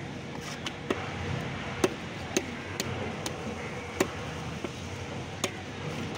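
Sharp knocks and clicks of a large knife working a fish on a wooden log chopping block, about nine irregular strokes roughly half a second apart, over a steady background hum of noise.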